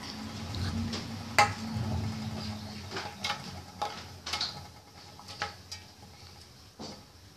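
Pink slime being squeezed and pressed between fingers, giving scattered small clicks and pops. The loudest is a sharp click about a second and a half in, over a low muffled rumble in the first couple of seconds.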